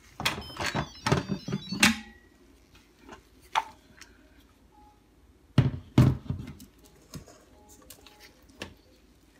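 Clatter of an Instant Pot being opened and handled: a quick run of clicks and metallic clinks in the first two seconds, then two loud knocks about six seconds in.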